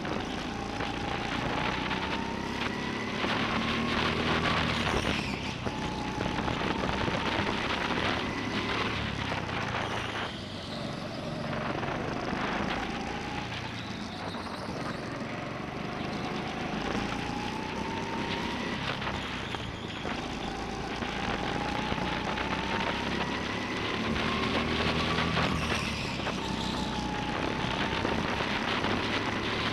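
Indoor rental go-kart's motor at racing speed, heard from a camera on the kart. Its whine rises in pitch along each straight and drops back into the next corner, about every five or six seconds, over a steady rush of wind and tyre noise.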